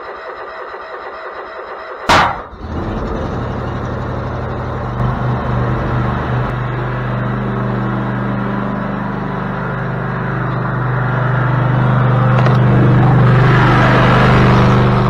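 Toro zero-turn riding mower's engine starting: an uneven mechanical sound for about two seconds, a sharp bang, then the engine running steadily with a low hum. It grows louder toward the end.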